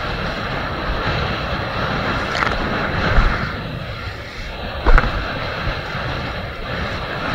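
Wind buffeting the microphone and water rushing past a kiteboard riding through choppy surf. There is a sharp slap of water about five seconds in, the loudest moment, with a smaller one about two and a half seconds in.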